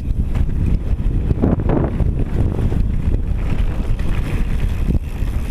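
Wind buffeting the microphone during a fast mountain-bike descent, with the tyres rumbling over a loose gravel and dirt trail and the bike rattling.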